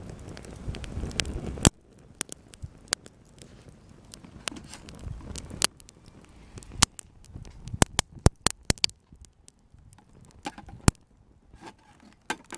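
Small wood campfire crackling, with sharp, irregular pops and snaps. A rushing noise at the start cuts off suddenly about a second and a half in.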